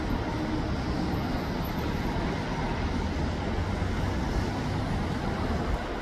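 Steady low rumble of city traffic, an even street noise with no distinct events standing out.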